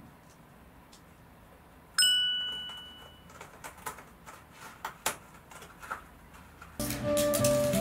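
A cat scratching with its claws: a run of irregular rasping strokes. A single bright ding rings and fades about two seconds in, and light music starts near the end.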